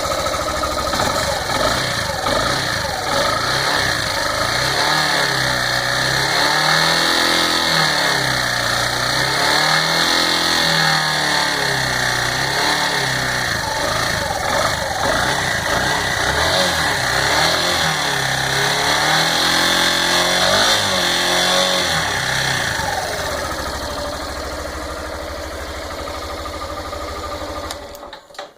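Yamaha Fazer 150 single-cylinder engine revved up and back down several times, then settling to a steady idle. The revving shows an engine noise the owner hears at around 5,000 rpm, which a cylinder-head job did not cure and which a mechanic blames on the engine's bottom end.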